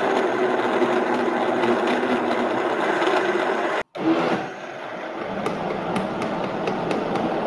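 Countertop blender motor running, blending chunks of raw green plantain into a paste. It cuts out for a moment just before four seconds in and restarts, running quieter at first and then building again.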